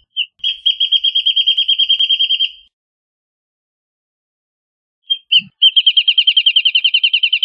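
Wrentit singing two songs. Each is one or two separate notes followed by a fast, even series of notes at about eight a second. The second song starts about five seconds in.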